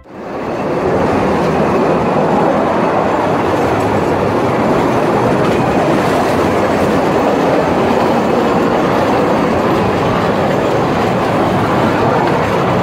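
Small mine train running along its rails through a narrow tunnel, a loud, steady rolling noise heard from inside the car, fading in at the start.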